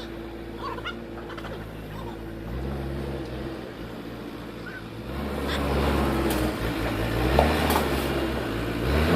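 JCB 3DX backhoe loader's diesel engine running, its pitch stepping up and down, working harder and louder from about five seconds in.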